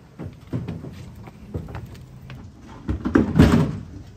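Irregular knocks and clatter from unloading work: a hand truck rolling over paving and stacked plastic shipping packaging being handled. About three seconds in comes a louder scraping rattle lasting most of a second.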